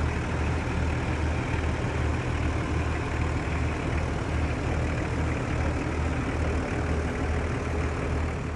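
Motor vehicle engine running steadily with a deep, even throb.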